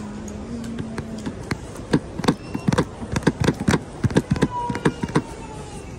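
A quick, irregular run of around fifteen sharp knocks or taps, starting about a second and a half in and stopping shortly before the end. A faint high tone slides slowly down near the end.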